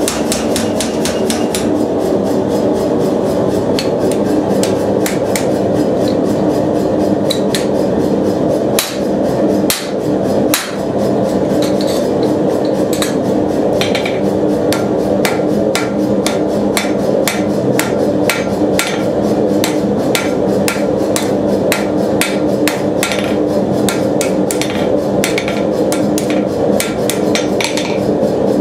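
Power hammer striking a glowing steel bar in rapid, regular blows, several a second over a steady mechanical hum. The blows pause briefly about nine to eleven seconds in.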